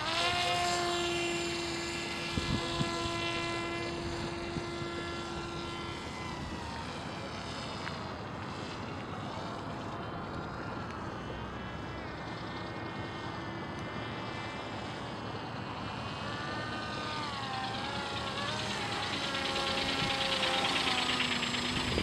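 RC model autogyro's motor and propeller whining as it spools up and flies. The pitch rises at the start and holds steady, with a couple of knocks about two and a half seconds in. Near the end it grows louder and bends in pitch as the model passes close.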